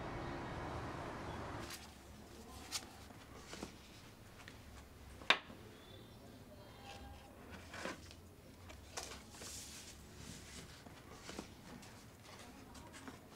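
Street ambience that cuts off about two seconds in, then a quiet small room with light paper rustling and scattered small clicks and taps as folded paper cards are handled and set up, one sharper click a little after five seconds in.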